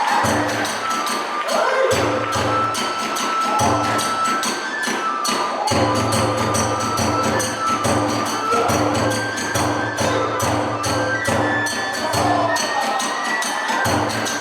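Hiroshima-style kagura ensemble playing a brisk, driving piece: a big drum beats in steady runs, small hand cymbals clash rapidly throughout, and a kagura bamboo flute plays held, shrill notes over them.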